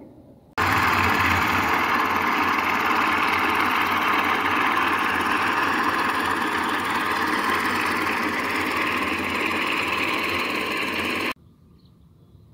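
Portable concrete mixer's engine running steadily, the drum turning during the pour. The sound starts suddenly about half a second in and cuts off sharply near the end.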